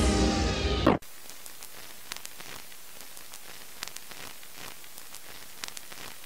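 Background music closes with a falling sweep and cuts off about a second in, giving way to a faint steady hiss with scattered clicks and pops: a static crackle effect like old film or a worn record.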